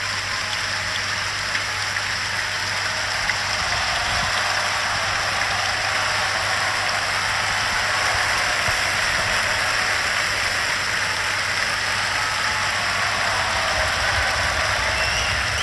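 A large concert-hall audience applauding steadily, calling for an encore. Heard on an old 1953 broadcast recording with a low hum underneath.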